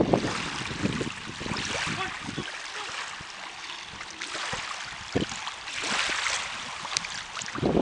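Water splashing as legs wade and a corgi puppy paddles through shallow seawater, with a few short splashes over a steady wash of water.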